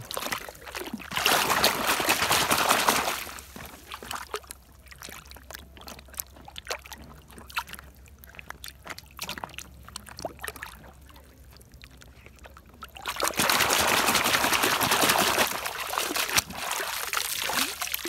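Water splashing and sloshing as a plastic toy motorcycle is swished by hand through muddy water. There are two louder spells, one about a second in lasting a couple of seconds and another from about 13 s, with soft dribbles and small splashes between.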